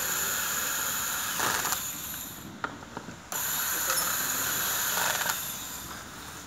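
Cordless drill-driver running in two steady bursts, driving screws into an office chair seat: the first stops about two and a half seconds in, and after a short pause the second runs for about two seconds before tailing off.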